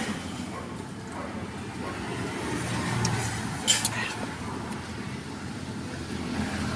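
Steady low rumble of background noise, like road traffic, with one sharp click a little past the middle.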